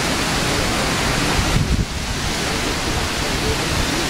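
Strong wind buffeting the microphone: a steady rushing with heavy low rumbles, and a harder gust about a second and a half in.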